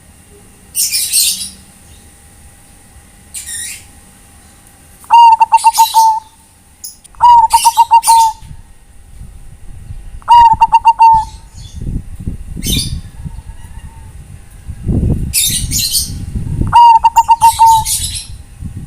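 Bangkok-type zebra dove (perkutut) cooing. Four phrases, each a quick stutter running into a held coo, with short hissy high-pitched bursts between them.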